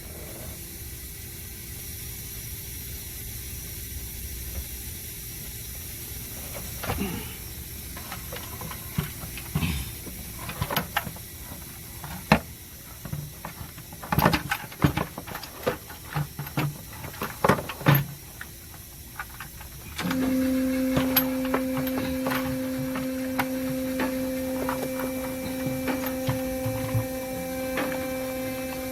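Scattered sharp clicks and knocks, then a steady electrical-sounding hum with a strong low tone that starts suddenly about two-thirds of the way in.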